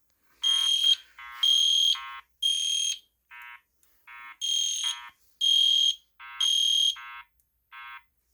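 EST Genesis horn strobe sounding the code-3 temporal pattern: three loud, high-pitched half-second blasts, a pause of about a second, then three more. A quieter, lower-pitched tone from the Genesis speaker strobe pulses out of step between and alongside the horn blasts.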